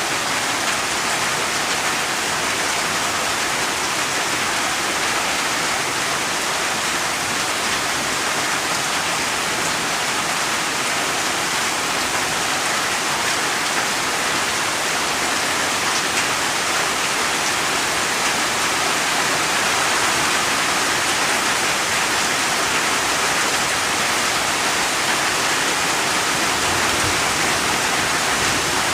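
Steady heavy rainfall, a dense even hiss of rain falling on surfaces with no breaks.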